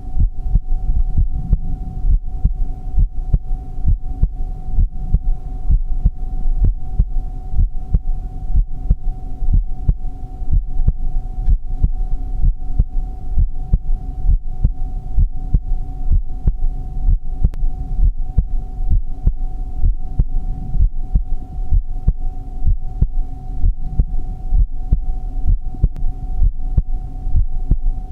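Heartbeat: regular, evenly spaced low thumps over a steady hum.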